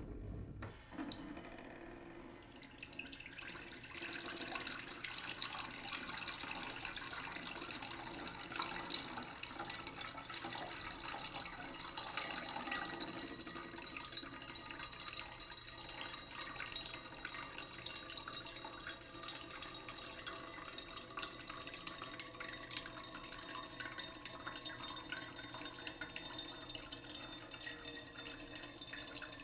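Tap water running steadily into a sink, growing louder over the first few seconds and then holding steady.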